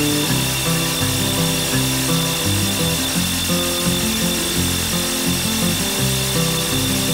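Background music with a changing bass line, the loudest sound, over a Bosch SDS-max rotary hammer spinning a diamond core bit as it cuts through brick, with a steady whine.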